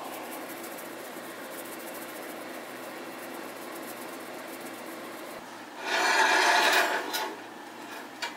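A herb shaker shaken over a cast-iron skillet gives a faint, steady, fast rattle. About six seconds in comes a much louder scraping rush, lasting about a second and a half, as the cast-iron skillet is slid onto the gas stove's grate. A short knock follows near the end.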